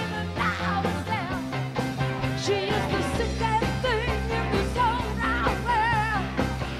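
Live rock band playing: a woman sings lead over electric guitar, bass and drums with a steady beat.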